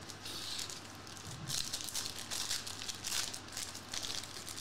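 Foil trading-card pack wrapper crinkling as hands peel it open, a run of sharp, crackly rustles starting about a second and a half in.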